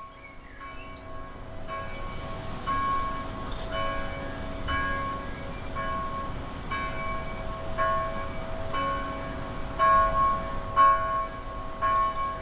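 Bells ringing in a steady peal, about one strike a second, each tone carrying on into the next and the whole growing louder; a few heavier hits come near the end.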